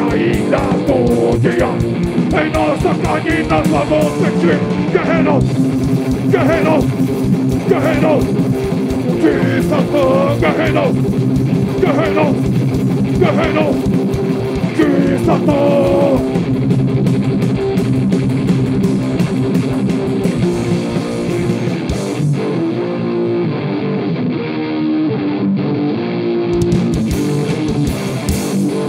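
Live metal band playing loud: distorted electric guitars and pounding drums, with shouted vocals over roughly the first half, then instrumental, the cymbals dropping out briefly before coming back in.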